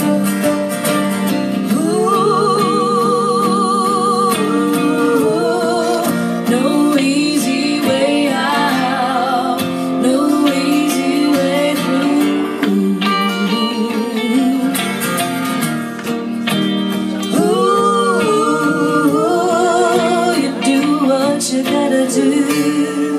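Live folk-rock band playing an instrumental break between verses: guitars keep up a steady chordal backing while a lead melody line plays over it with wide vibrato and pitch bends.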